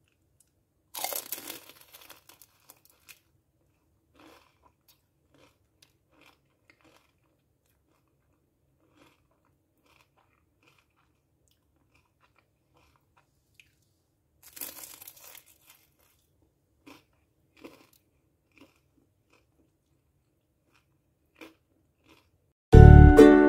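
Crisp deep-fried spring roll wrapper crunching and crackling as the roll is broken into: two loud crunches, about a second in and near the middle, with faint crackles between. Music starts just before the end.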